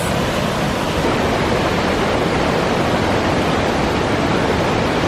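Fast-flowing mountain river rushing over rocks, a loud, steady hiss of water.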